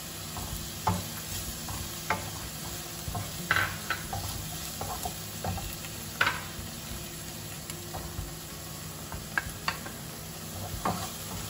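Sliced shallots, green chillies and crushed ginger and garlic sizzling steadily in hot coconut oil in a nonstick frying pan. Scattered clicks and knocks come from a wooden spatula and a bowl against the pan as the food is stirred.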